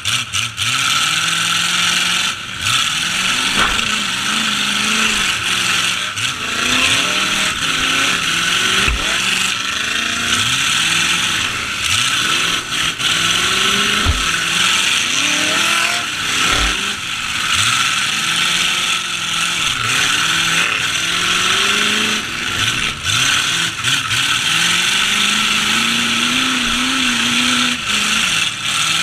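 Several demolition-derby truck engines revving up and down over one another, with a few heavy thuds of collisions scattered through.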